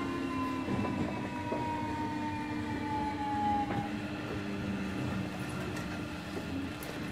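JR Kyushu 305 series electric train heard from inside a motor car while braking, its VVVF inverter and permanent-magnet traction motors whining in several tones that slowly fall in pitch as it slows. The whine cuts off about four seconds in, leaving a steady hum and the rumble of the car rolling on the track.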